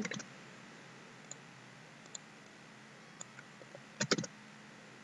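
Computer keyboard keys being pressed: a few faint single clicks, then a quick cluster of about four louder key clicks about four seconds in.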